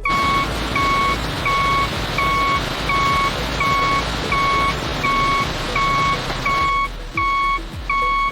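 Farm vehicle's reversing alarm beeping at an even rate, about three beeps every two seconds, over the noise of a running vehicle that drops away about two-thirds of the way in.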